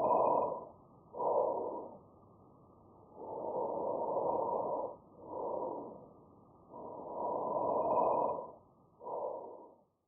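Normal vesicular breath sounds recorded by auscultation of the peripheral lung field: low-pitched breathing, three breaths, each breath in clearly longer than the breath out that follows it.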